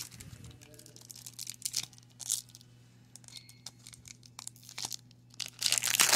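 Shiny foil wrapper of a baseball card pack being torn open by hand, crackling in short tears, with a louder burst of crinkling near the end.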